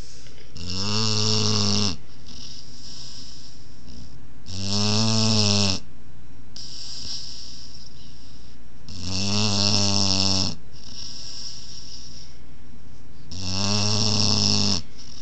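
A 20-week-old Boerboel puppy snoring in its sleep: four loud snores, one every four to five seconds, with a softer breath between each.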